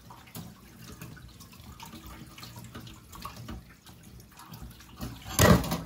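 Kitchen tap running into a sink as something is rinsed under it, with small clicks and drips. A brief, much louder rush of noise comes near the end.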